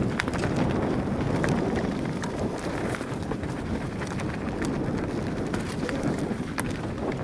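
Mountain bike riding down a dirt forest trail: a steady rumble of tyres over the ground and wind on the microphone, with scattered sharp clicks and rattles.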